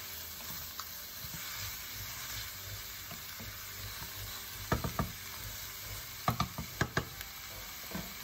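Pork belly cubes sizzling in a nonstick pan as a wooden spoon stirs them. A few sharp clicks and knocks come about halfway through and again near the end.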